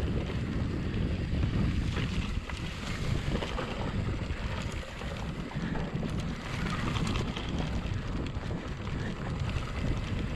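Wind buffeting the microphone of a mountain bike rider's camera while riding a trail, over a low, uneven rumble with scattered clicks and rattles from the bike on rough ground.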